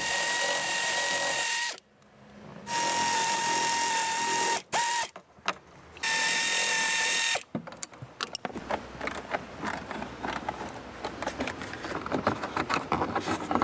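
Electric drill-driver running in three bursts of one to two seconds each, with a steady high whine. After that comes a run of small quick clicks and rattles of metal parts being handled.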